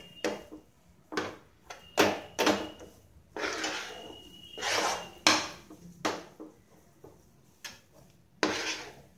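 Metal spatula scraping and knocking against a nonstick frying pan as a thick, sticky wheat-flour halwa is stirred and turned. The strokes come irregularly, some sharp and short, a few drawn out for about half a second.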